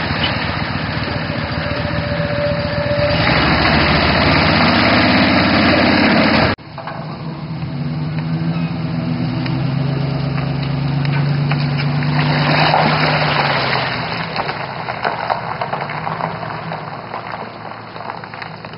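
A boat's small outboard mud motor running as the boat is driven onto its trailer; after an abrupt cut about six seconds in, a pickup truck's engine running steadily as it tows the loaded trailer away, fading near the end.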